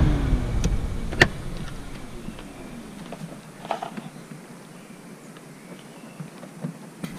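A vehicle engine falling in pitch and fading away over the first few seconds, leaving faint outdoor background. A sharp click about a second in and a couple of light clicks later.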